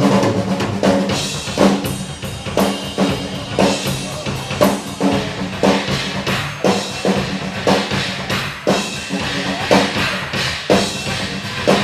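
Live rock drum solo on a full drum kit: bass drum, snare and toms struck in fast, irregular patterns, with rimshots.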